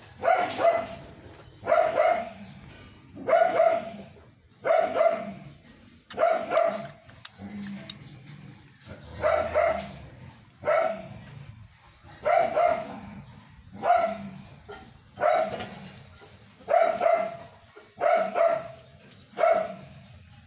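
A dog barking over and over, in short high-pitched barks, some of them doubled, about one every second and a half.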